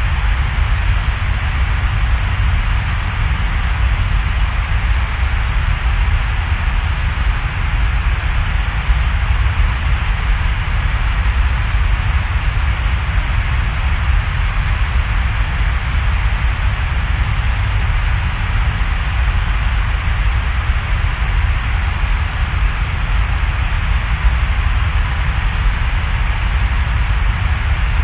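Steady, unchanging rushing hiss with a deep rumble beneath it, a rain-like or white-noise ambience playing as a background track.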